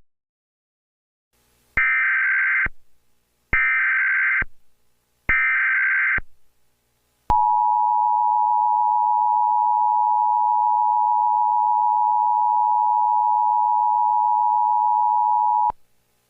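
Emergency Alert System tones: three short buzzy bursts of SAME header data, about a second each with short gaps between, then the two-tone attention signal held steadily for about eight seconds before it cuts off sharply.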